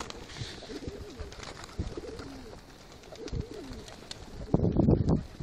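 Fancy pigeons cooing: soft, wavering low calls repeated over a few seconds, followed near the end by a short spell of louder low thuds.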